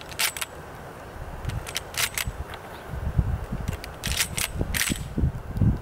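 Short, sharp clicks, mostly in close pairs about every two seconds, over a low, irregular rumble.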